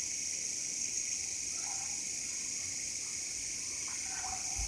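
Felt-tip marker drawing on a whiteboard, with a few faint short squeaks over a steady high-pitched hiss.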